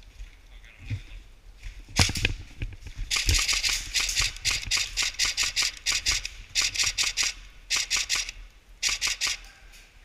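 Airsoft guns firing: a few shots about two seconds in, then repeated bursts of rapid shots and strings of single shots that stop shortly before the end.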